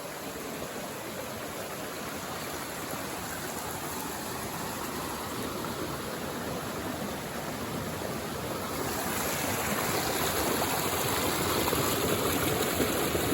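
Mountain stream running over rocks, a steady rush of flowing water that grows gradually louder.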